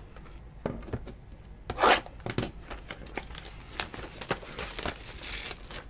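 Trading-card pack wrapper being handled and torn open: crinkling and rustling with scattered clicks, the loudest rustle about two seconds in and a longer tearing hiss a little after five seconds.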